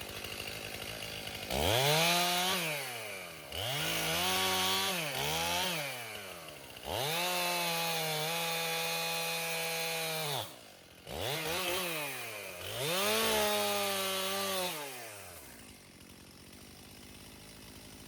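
Chainsaw idling, then revved up again and again: the pitch climbs, holds high for one to three seconds and falls back, five times, the longest run held steady for about three seconds. It drops away after about fifteen seconds.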